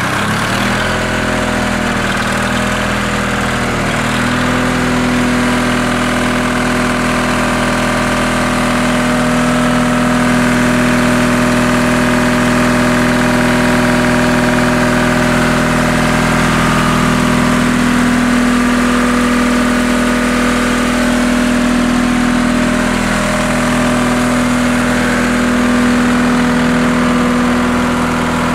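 Detroit Diesel 2-71 two-stroke, two-cylinder diesel engine running steadily on a generator set just after starting. Its pitch rises slightly about four seconds in and then holds steady.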